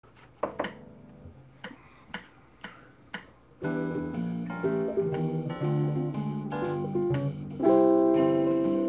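A few sharp clicks, the last four evenly spaced about half a second apart, then from about three and a half seconds in a solo electric guitar plays clean, dry jazz chords with no effects, with a louder chord near the end.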